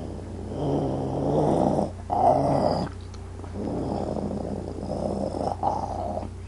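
A person imitating a peeved wolf: a low, rough throat growl in several long stretches, rising into a louder snarl about two seconds in, with brief breaks between them.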